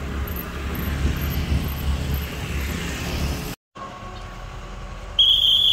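Low rumble of vehicle traffic that cuts out briefly, then a loud, high-pitched horn blast starting about five seconds in.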